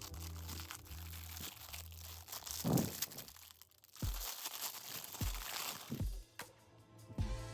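Packaging crinkling and tearing as a parcel is unwrapped, with a louder crunch about three seconds in, over background music with low bass notes.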